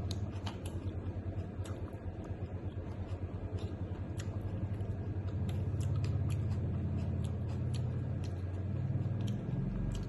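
Close-miked eating noises: a low, pulsing rumble of chewing with scattered small clicks and smacks.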